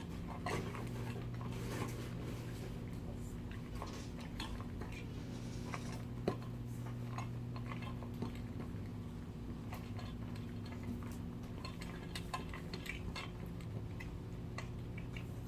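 Shih Tzus eating from food bowls: irregular small clicks and clinks of food and bowls, over a steady low hum.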